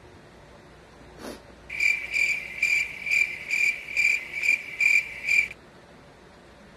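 High-pitched pulsing chirp, about nine even pulses over nearly four seconds, that stops abruptly. A single short click comes just before it.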